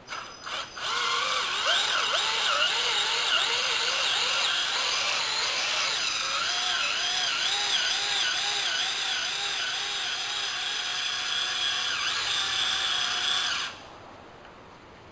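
Handheld cordless drill running under load, driving the valve installation tool's screw to raise the valve and cage assembly into the valve port. A few clicks come as it engages, then a motor whine that repeatedly wavers up and down in pitch as the load varies, and it stops abruptly near the end.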